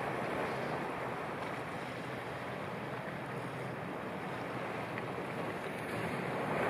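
Sea waves washing steadily, an even rushing noise with no distinct breaks.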